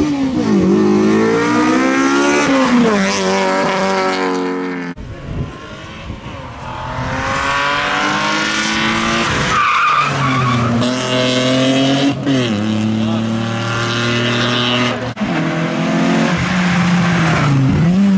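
Rally cars driven hard one after another on a tarmac sprint stage, including a BMW 3 Series Compact (E36) and a Citroën Saxo. The engines rev high, then the pitch drops at gear changes and braking. The sound cuts abruptly from one car to the next a few times.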